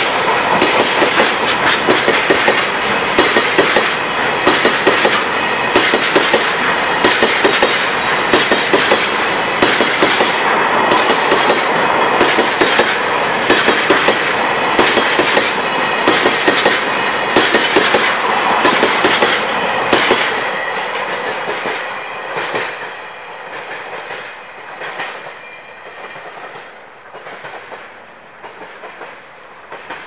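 Freight train of tank wagons passing close by, the wheels clacking over rail joints in a steady repeating rhythm. The last wagon goes by about twenty seconds in and the train noise fades away.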